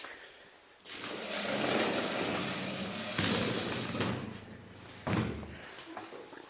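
Electric fan running loudly, a rushing whir with a low buzz and a thin high whine, switched on about a second in and cut off near the end.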